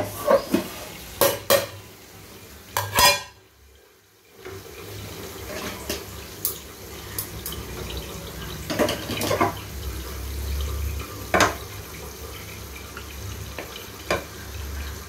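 Metal cooking pots and utensils clinking and knocking, with a cluster of sharp clatters in the first three seconds, then scattered single knocks over a low steady hum.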